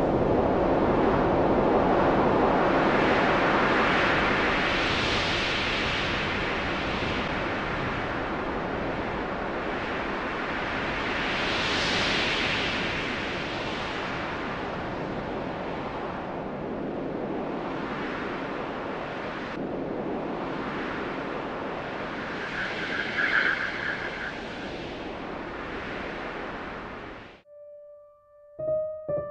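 A steady rushing noise that swells and eases, loudest in two surges early on and about twelve seconds in, then cuts off suddenly about 27 seconds in. A few piano notes begin just at the end.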